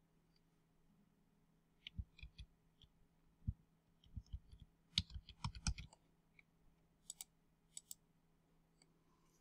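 Faint clicking and tapping at a computer: keyboard keys and a Wacom pen on its tablet. A few scattered clicks, a quick run of a dozen or so in the middle, then two more sharp clicks.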